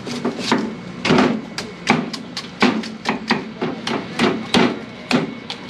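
A large knife chopping a green young coconut on a wooden chopping board, trimming away the husk. It is a rapid series of sharp whacks, about three a second.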